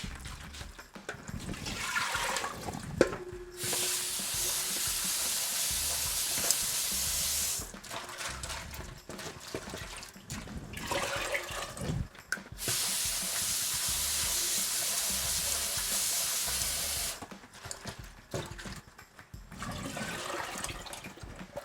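Water running from a tap in two stretches of about four seconds each, starting and stopping sharply, with knocks and clatter of handling in between: the soaked cabbage being drained and rinsed of its salt water.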